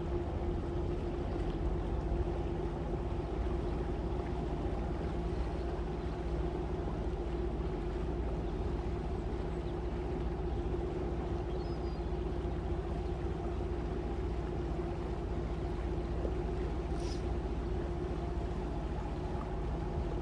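Boat engine running steadily, heard from on board: a constant low drone with a steady hum on one pitch.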